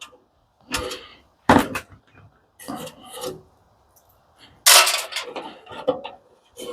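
Rough scraping and rubbing strokes from parts being worked loose during the teardown of an industrial coffee machine: four or five separate strokes with short pauses between, the loudest about five seconds in.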